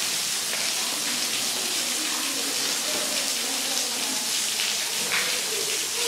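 Thin waterfall spilling over a sandstone cave ledge and splashing onto the rocks and pool below: a steady hiss and patter of falling water.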